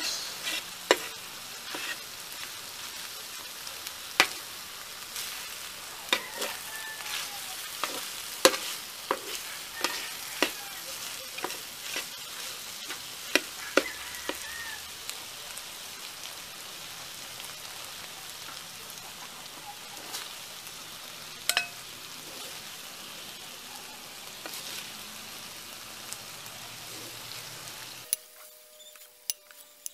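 Diced chicken sizzling on a hot griddle while a metal spatula scrapes and taps across the cooking surface, turning the meat and scooping it off. The meat is nearly done, golden on all sides. The sizzle cuts off suddenly near the end.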